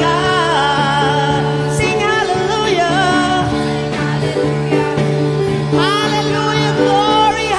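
Live worship band playing a gospel chorus: several singers, women and a man, singing together into microphones over held keyboard chords and a drum kit.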